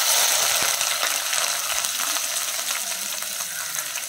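Chopped shallots and onion sizzling in hot oil in a non-stick pan just after being tipped in, the hiss starting hard and slowly easing off.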